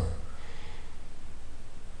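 Snoring in a sleeping person: a loud snore breaks off at the start, followed by a breathy exhale in the pause before the next snore, over a low rumble.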